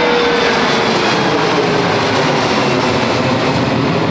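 Jet aircraft engines climbing out just after takeoff and passing right overhead. A loud, steady jet roar with a whine that slowly falls in pitch as it goes by.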